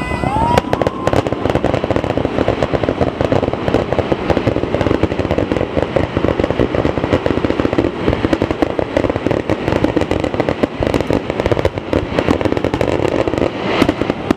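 Aerial fireworks bursting in a dense, rapid barrage of bangs and crackles, with a short rising whistle about half a second in.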